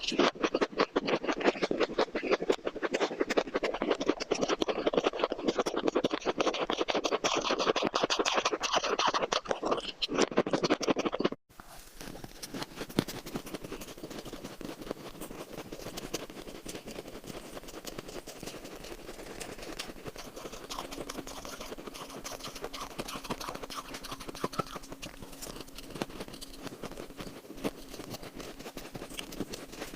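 Close-up crunching of shaved ice being bitten and chewed: a rapid, dense run of crisp cracks. About eleven seconds in it cuts off abruptly and carries on quieter.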